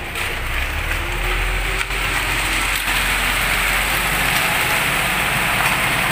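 Ready-mix concrete mixer truck running while it discharges wet concrete: a steady rushing hiss over the low rumble of its diesel engine, growing louder about a second in.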